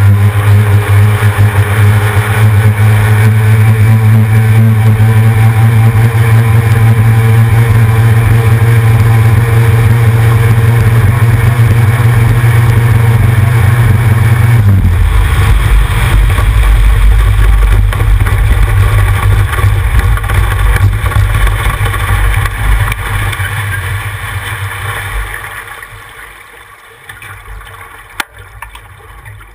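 C Stock racing hydroplane's outboard motor running hard at a steady high pitch, then throttled back about halfway through to a lower rumble as the boat slows. The engine sound fades out over the last few seconds.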